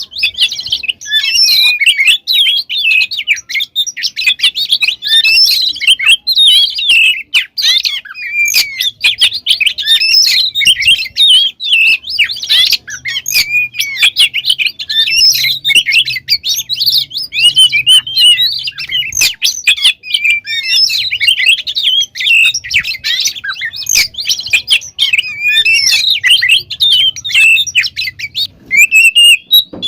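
Oriental magpie-robin (kacer) singing a loud, unbroken, fast song of varied whistles and chirps, packed with mimicked phrases.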